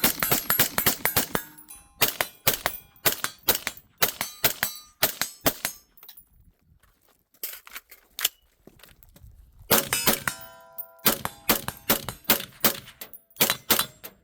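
Ruger AR-556 rifle firing in fast strings of shots, with a pause of a few seconds in the middle. Hits on steel targets ring among the shots.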